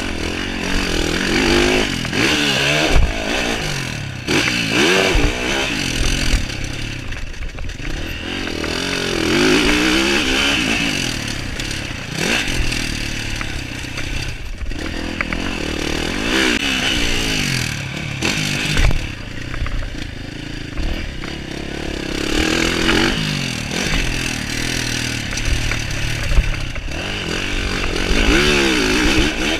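Yamaha SR500's single-cylinder four-stroke engine being ridden hard, revving up and dropping back again and again as it is opened up and shut off.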